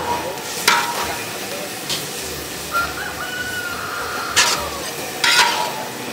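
Food sizzling steadily in a hot pan while a metal utensil stirs it, knocking against the pan about five times with a short metallic ring.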